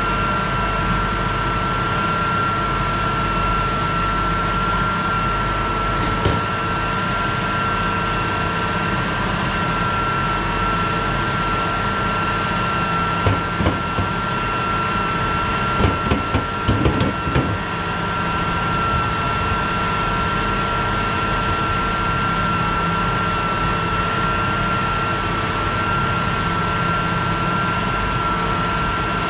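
A machine running steadily, with a high, even whine over its hum, and a few short knocks near the middle.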